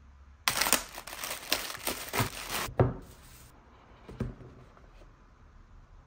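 Crinkling and tearing of packaging for about three seconds as a boxed mouse is handled and unsealed, with a knock near the end of the crinkling and a softer one about a second later.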